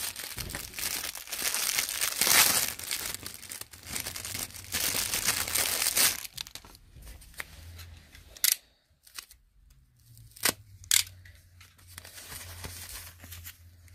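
Clear plastic poly bag being torn open and crinkled by hand, a dense crackling for the first few seconds. Then a few sharp single crackles and softer rustling as the paper-wrapped item inside is pulled out and unwrapped.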